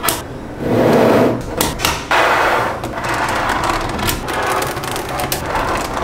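Small magnetic balls clicking sharply against each other, with bouts of rattling and scraping as they are handled and slid into place.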